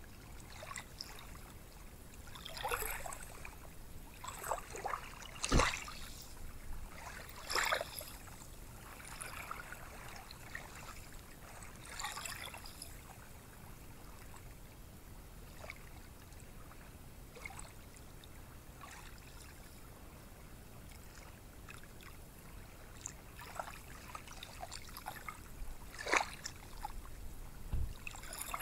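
Small ocean waves washing onto a sandy beach: a steady soft wash with several short louder crackles of fizzing water, the strongest about five seconds in and again near the end.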